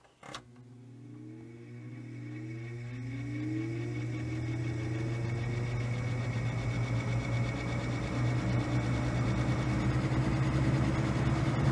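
1950s Roto-Aire 07104 two-speed box fan switched on at low speed: a click, then the motor hum and the blades spinning up, with a rising whine that climbs and grows louder over several seconds before settling into a steady run with a thin high tone. The owner guesses the extra noise is the blade hub touching the motor.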